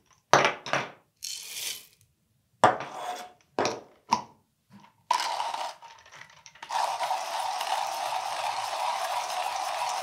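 Coffee beans rattle in several short bursts as they are poured into a Comandante C40 hand grinder and it is readied. About six and a half seconds in, a steady grinding starts as the crank turns and the conical burrs grind the espresso beans at a fine espresso setting.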